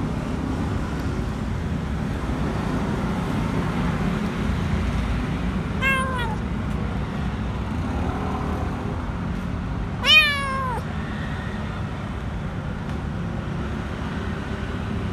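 Kitten meowing twice: a short, faint meow about six seconds in and a louder, longer one about ten seconds in, each falling in pitch, over a steady low background rumble.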